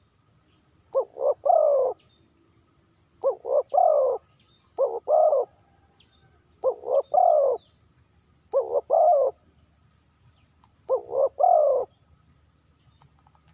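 Spotted dove cooing: six call phrases about two seconds apart, each two or three short coos followed by a longer one.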